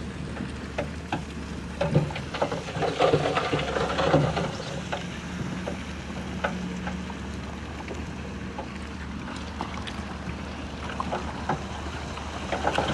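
Heavy diesel earthmoving machinery running steadily, with scattered clanks and knocks of steel tracks and stone, busiest for a couple of seconds near the start.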